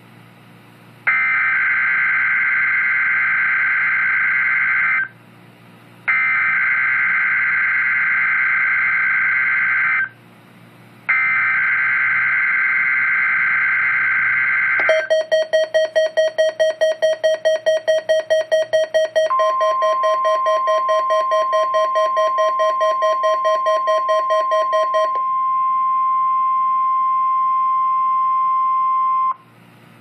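NOAA Weather Radio Required Weekly Test received on a weather radio: three buzzy screeching bursts of the SAME digital alert header, a second apart, then rapid beeping with a steady warning alarm tone joining partway through. The steady tone carries on alone for a few seconds and then cuts off.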